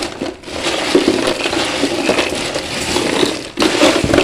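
Phone microphone being handled close up: loud rustling and crackling with scattered clicks.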